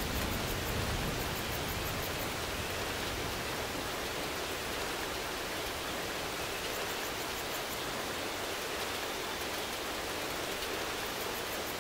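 Steady rain, an even hiss with no separate drops standing out.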